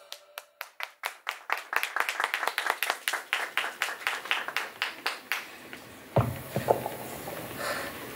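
Audience clapping in quick, even claps, about five a second, that fade out after about five seconds. A single loud thump follows about six seconds in.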